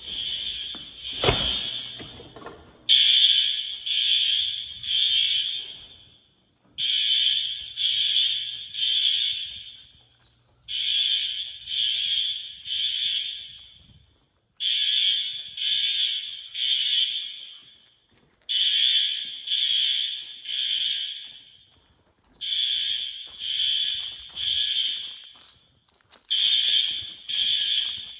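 Fire alarm horns sounding the temporal-three evacuation pattern: three piercing pulses, a pause, then again, about every four seconds. A sharp knock is heard about a second in.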